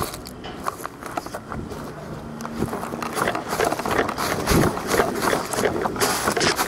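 Footsteps and rustling of clothing and gear as a person moves quickly on foot, growing louder and busier from about halfway.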